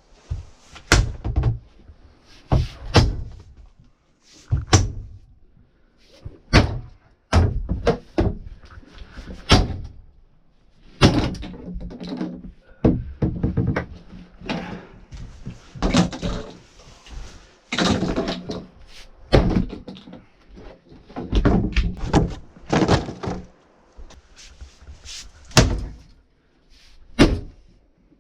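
Sledgehammer blows breaking up an RV's wooden cupboards and furniture: more than a dozen heavy thuds at irregular spacing, some followed by crunching and clattering as the wood splinters and falls.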